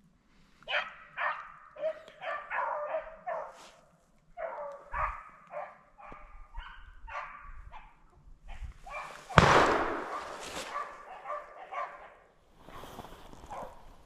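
Beagles baying in short repeated calls, the hound voice of dogs running a rabbit's track. About nine seconds in comes a single loud, sharp bang, the loudest sound here, and the baying goes on more sparsely after it.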